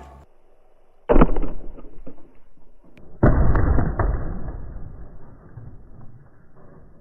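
A heavy 18-inch subwoofer speaker dropped onto the sound-deadened trunk lid of a Lada Riva: a loud crash about a second in, then a second heavy crash about two seconds later that dies away slowly.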